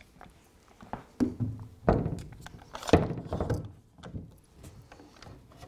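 A bar clamp being fitted onto the end of a plywood baseboard: several wooden knocks and clatters as it is set against the board, the loudest about two and three seconds in.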